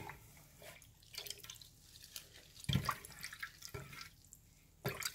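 Water dripping and splashing back into a glass bowl as hands squeeze soaked shredded dried pollack, in scattered irregular drips with two louder splashes, one near the middle and one near the end.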